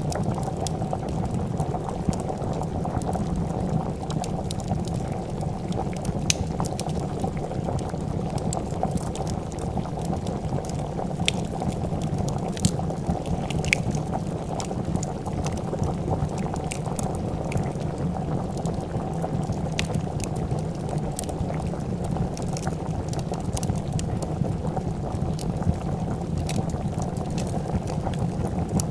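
A pot of soup bubbling steadily at a rolling boil, with the sharp pops and crackles of a wood fire scattered throughout.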